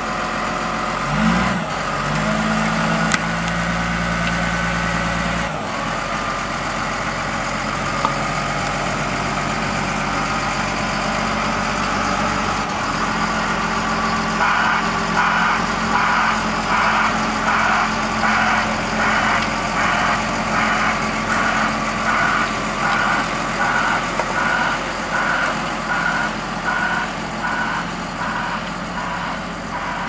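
Front-end loader's diesel engine running, revving up briefly about a second in and then holding steady. From about halfway on, its reversing alarm beeps evenly, a little faster than once a second.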